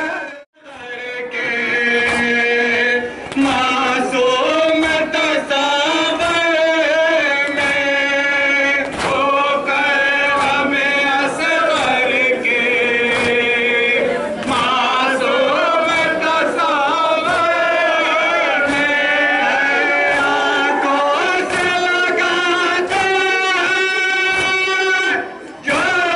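Group of men chanting a mourning lament (noha) together, with sharp beats at a regular pace. The sound drops out briefly about half a second in.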